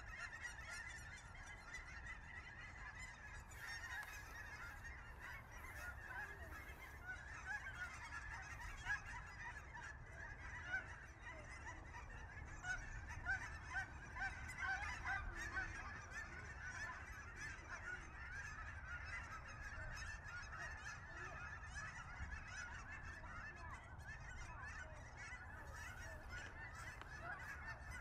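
A large flock of cackling geese calling without pause, a dense chorus of many short, high-pitched honks overlapping as birds come in to land.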